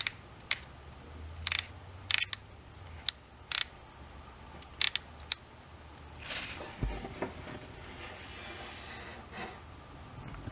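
The variable-speed thumbwheel on a DeWalt DWE6423K random orbit sander clicking as it is rolled through its settings, with the sander switched off: about nine sharp, irregular clicks over the first five seconds or so. Then handling rustle, with a dull bump about seven seconds in.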